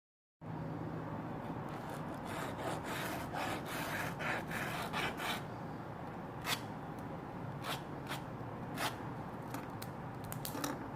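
Hands handling and rubbing materials at a workbench: a few seconds of rubbing and scraping, then a scattering of sharp clicks, over a steady low hum.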